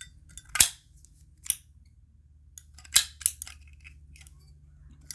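Metal Zippo lighter lids being snapped open and shut: a few sharp, separate metallic clicks, the loudest about half a second in and two close together around three seconds in.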